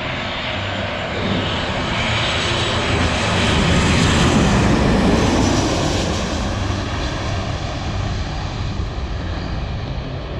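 Airliner passing low overhead on landing approach: engine rumble and rushing noise swell to a peak about halfway through, then slowly fade as it moves away.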